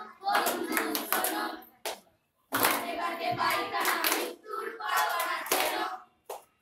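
Voices singing with hand clapping, in phrases broken by a short silence about two seconds in.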